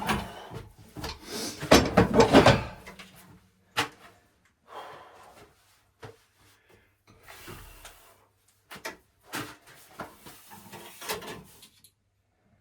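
Irregular clunks, scrapes and rattles of plumbing being worked loose by hand while removing a tight inlet pipe. The clatter is loudest about one to three seconds in, followed by scattered single knocks and short scrapes.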